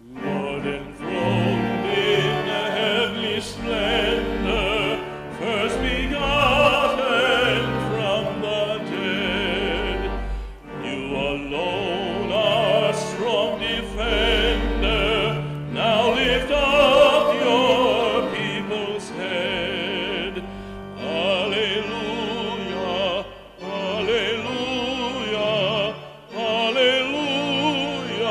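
A hymn sung by a trained voice with wide vibrato over sustained keyboard accompaniment, the phrases broken by short breaths.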